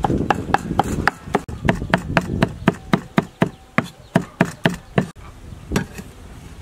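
Steel cleaver chopping garlic on a round wooden chopping board: steady knocks about four a second. The chopping stops about five seconds in, with one last knock near the end.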